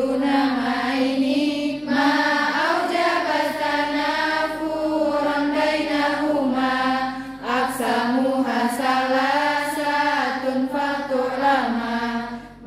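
A large group of female students chanting Arabic text in unison, a sing-song recitation of many voices, with short breaks for breath about halfway and again near the end.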